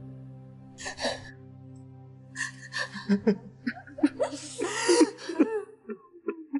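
Soft background score of held tones under women sobbing and wailing, the crying growing thicker and louder from about halfway through; the music and crying cut off abruptly at the end.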